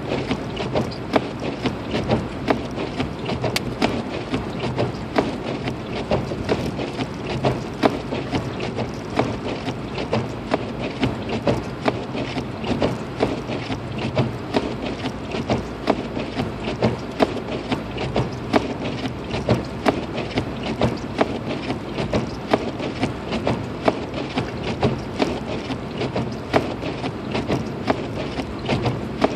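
Road and drivetrain noise heard inside a Lexus IS250's cabin while driving on a snowy road, a steady low drone under a rushing hiss, with sharp irregular ticks several times a second throughout.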